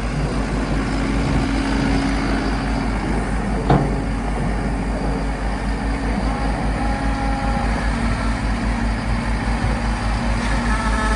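Skid steer's diesel engine running steadily as it works snow, with a single sharp knock about four seconds in.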